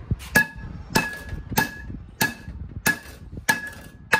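Hammer blows on steel at a tractor rear axle shaft and hub, seating a new axle seal. A regular series of sharp strikes, about one every two-thirds of a second, each leaves a short metallic ring.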